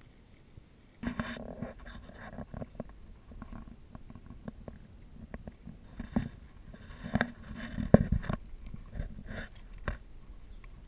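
Footsteps crunching and scraping on loose scree and broken rock, irregular steps with a few sharper knocks, starting about a second in.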